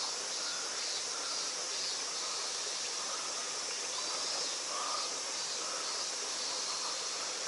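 Steady outdoor ambience dominated by a high-pitched insect chorus.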